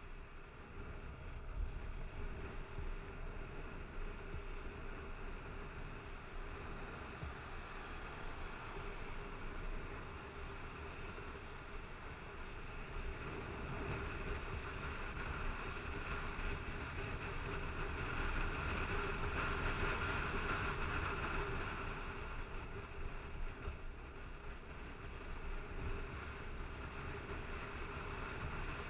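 Motorcycle engine running steadily while riding, mixed with low wind rush on the helmet-mounted camera. It grows louder for several seconds past the middle, then eases off again.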